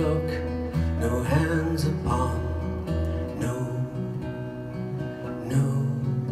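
Acoustic guitar strummed and picked in a live song passage without vocals, its bass notes changing about once a second.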